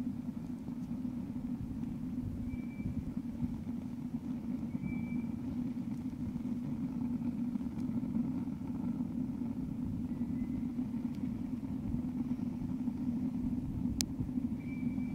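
Home-made rocket stove with a 4-inch burn tube inside an old air compressor tank, burning with a steady low rumble as the fire draws through the tube. A single sharp click about 14 seconds in.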